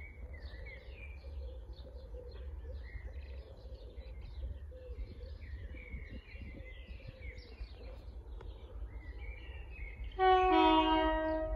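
Birds singing over a low rumble. About ten seconds in, DB Cargo Class 60 diesel locomotive 60011 sounds its two-tone horn, a higher note followed by a lower one, for about a second: the loudest sound.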